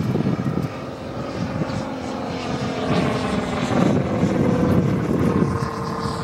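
Moki 250 cc five-cylinder radial engine with a three-blade propeller, driving a giant-scale RC Hellcat model in flight. It drones steadily and grows louder toward the middle as the model passes, its pitch dropping slightly. Wind buffets the microphone at the start.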